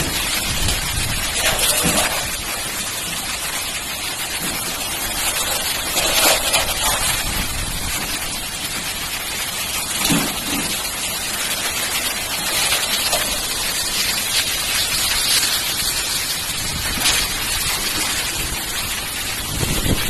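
Heavy rain with strong wind: a loud, steady rush of noise that swells briefly every few seconds.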